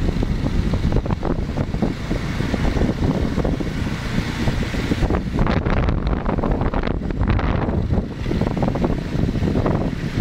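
Wind buffeting the microphone over the steady rumble of a moving vehicle; a continuous low, gusty roar with no distinct events.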